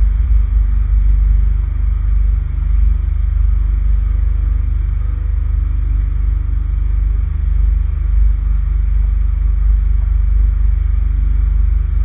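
Hydraulic vibratory pile driver running steadily on top of a wooden piling, a continuous low rumble as it vibrates the pile down into the bottom.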